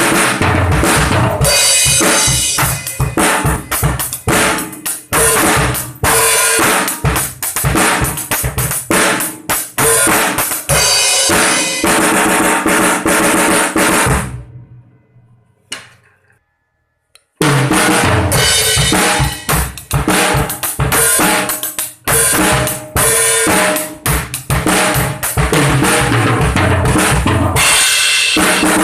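Drum kit played in fast, dense patterns to show off the snare drum's tone, with bass drum and cymbals. The playing stops for about two seconds halfway through, then resumes, the demonstration going from a high snare tuning to a low one. Loud and rough, as recorded on a phone's microphone.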